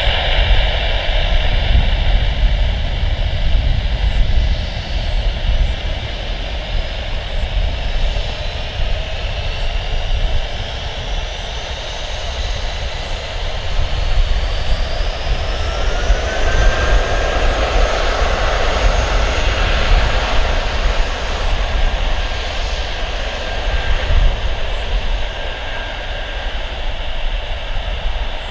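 Airbus A320 jet engines spooling up to takeoff thrust: a whine rises for about ten seconds, then holds high and steady over a constant low rumble as the airliner begins its takeoff roll.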